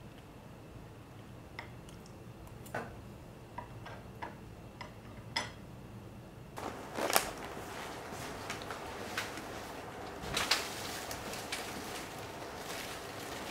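Scattered light clicks and taps of things being handled in a quiet room. About halfway through, louder rustling and knocks begin, fitting a cloth shopping bag being unpacked on a kitchen counter.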